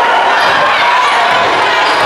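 Basketball spectators in a gym: many voices talking and shouting at once in a steady, loud crowd din.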